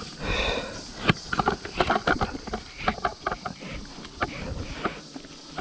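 Footsteps and shoe scuffs on bare rock: irregular knocks and scrapes, about two or three a second, over a faint steady hiss.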